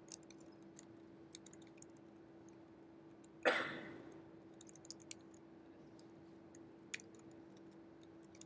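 Faint, sporadic clicking of laptop keyboard keys as code is typed, over a steady low hum. One louder short noise comes about three and a half seconds in.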